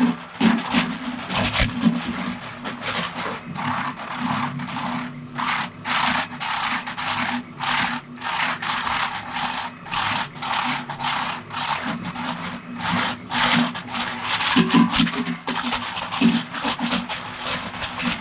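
Dual-shaft shredder running with a steady hum while its turning cutter discs catch a hard plastic toy vehicle, with repeated cracking, knocking and scraping as the plastic bounces on the blades and is chipped.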